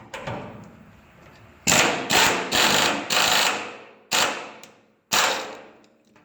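Air wrench run in about six short trigger bursts, four close together and then two single ones. It is drawing a bolt to set a nut insert into a sheet-steel truck bedside, and it is let off as the insert starts tightening up.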